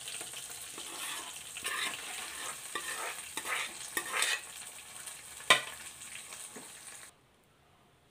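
Hot oil sizzling in a kadhai around a cooked greens-and-lentil mixture just tipped into the tempering, with short scrapes and knocks from stirring and one sharp knock about five and a half seconds in. The sound cuts off suddenly near the end.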